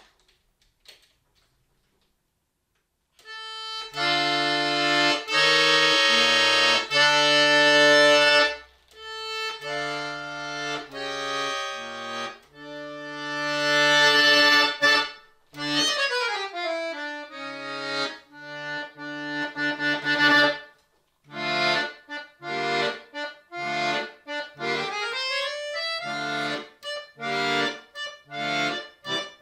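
Chromatic button accordion played solo. After about three seconds of near silence it comes in with loud sustained chords over a deep bass, moves into fast runs up and down about halfway through, and then plays short detached chords in a steady rhythm to the end.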